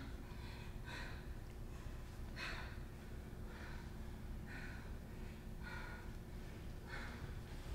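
Audible breathing, short breaths about once a second, faint over a low steady hum.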